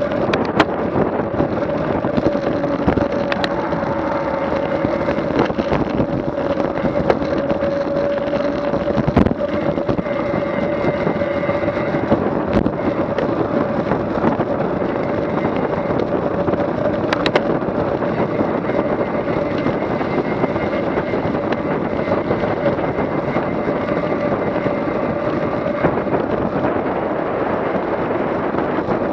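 An engine running at a steady speed under a dense rush of noise, with a few sharp knocks along the way.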